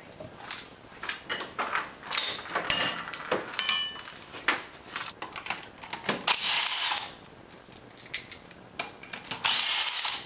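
Cordless impact wrench on a truck wheel's lug nuts, running in two bursts of about a second each, its motor whine rising and falling. Before that come scattered metallic clinks and rattles with brief ringing.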